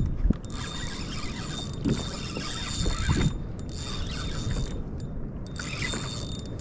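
Fishing reel being worked from a kayak, making fast mechanical clicking and whirring in three bursts. A few low thumps and a steady low rumble of water and wind lie beneath.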